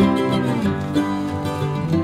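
Background music led by plucked acoustic guitar, notes changing every fraction of a second.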